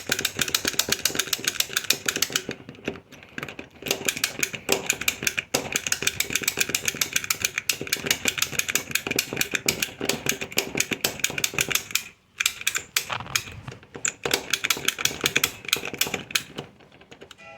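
Rapid, irregular metallic clicking of a lock pick being raked and worked against the pins of a doorknob's pin-tumbler lock, with a brief pause about twelve seconds in. The pins are not setting and the lock stays shut.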